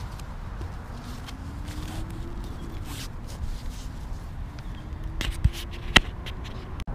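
Fabric rustling and scraping as a stuff sack is pushed into a backpack and a strap is pulled tight, with a few sharp clicks near the end, the loudest about six seconds in.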